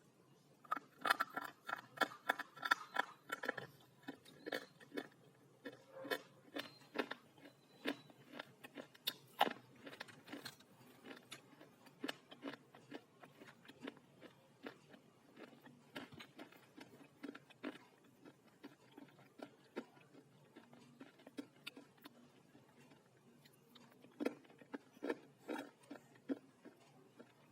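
Slate being bitten and chewed: a run of sharp, dry crunches, densest near the start and again near the end, with slower crunching in between.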